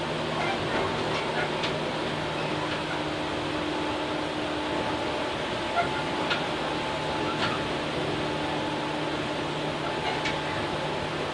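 Inside a Tobu 8000 series electric train car under way: a steady running rumble with a low, even hum and a few faint clicks.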